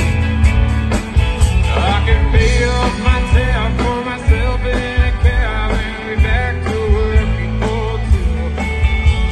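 Live rock band playing: electric and acoustic guitars, bass and drums, with a singer coming in about two seconds in.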